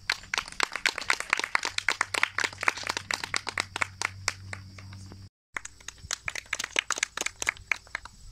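Small audience applauding with quick, irregular hand claps. The clapping cuts out for a moment about five seconds in, then goes on and thins out near the end.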